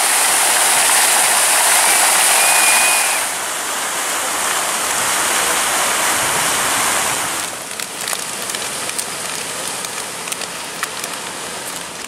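Fountain jets splashing into a large basin: a steady rush of falling water. It drops in level about three seconds in, and from about seven seconds gives way to quieter open-air ambience with scattered light clicks.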